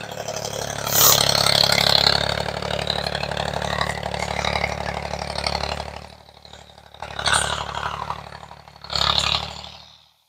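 Farm tractor engine running steadily as it pulls a disc harrow over plowed ground, heard from across the field. The engine fades about six seconds in, followed by two short rushes of noise.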